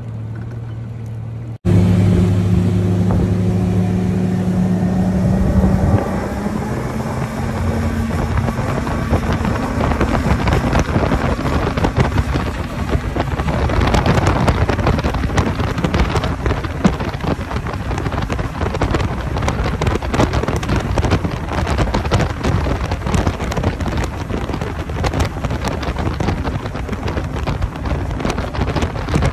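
A 250-horsepower outboard motor on a bass boat runs at a steady low-speed note, louder from about two seconds in. Around six seconds in it is throttled up, its note rising slightly as the boat gets up to speed. It then runs flat out, with wind buffeting the microphone.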